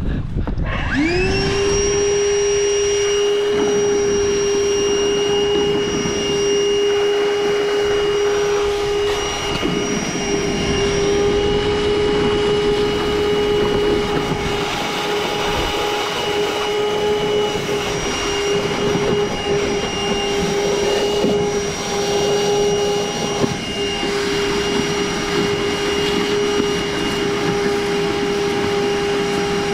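Milwaukee wet/dry vacuum switched on, its motor spinning up with a rising whine in the first second and then running steadily at a high pitch. It sucks muddy water and dirt up its hose, with irregular rattling noise over the motor through the middle.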